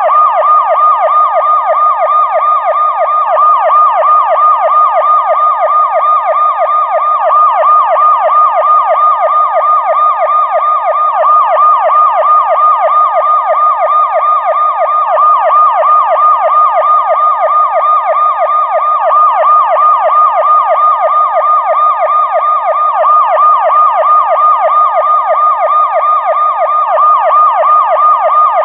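Police siren in its fast yelp mode, a pitch sweeping up and down several times a second, without a break.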